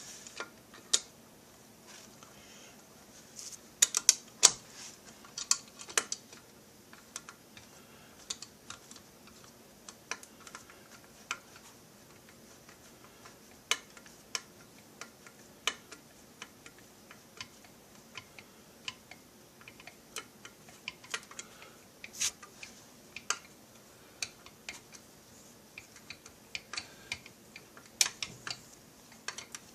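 Irregular light clicks and taps of hand tools and metal screws as the crankcase halves of a Stihl MS660 clone chainsaw are screwed together. A few louder clicks stand out, about four to six seconds in and again near the end.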